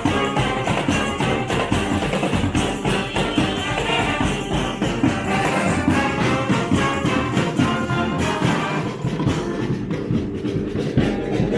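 A street brass band playing live, with many horns sounding together over a steady drum and percussion beat.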